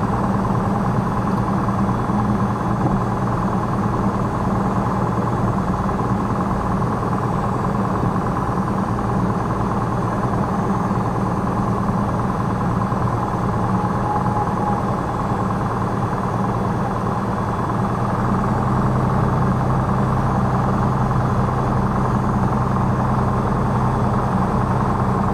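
Piper PA-46 Malibu's piston engine and propeller running at low taxi power, heard inside the cockpit as a steady drone. The drone picks up slightly about three-quarters of the way through.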